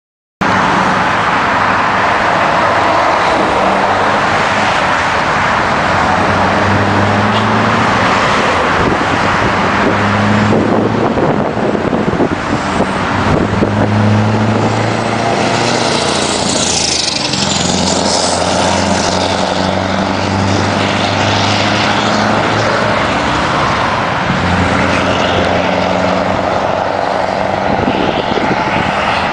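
Scania R500's V8 diesel accelerating hard as the truck pulls away. The engine note climbs and drops back again and again as it shifts up through the gears.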